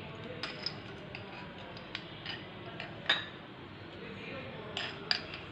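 A metal spoon clinking lightly against drinking glasses as sugar is spooned into them, a handful of scattered clinks.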